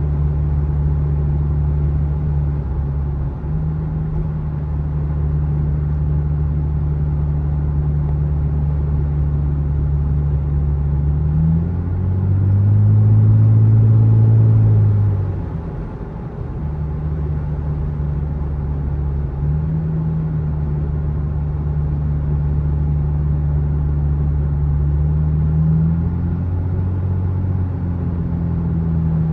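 Lexus engine through a newly fitted aftermarket axle-back exhaust, heard from inside the car while driving: a steady low drone. About twelve seconds in the pitch and loudness climb as the car accelerates, then ease back to a cruise, with smaller rises later on.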